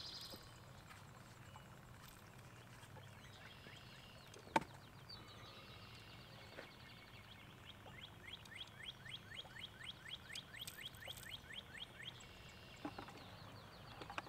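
Faint creekside ambience: a bird calling in a rapid series of short falling chirps, about three a second. A single sharp click about four and a half seconds in.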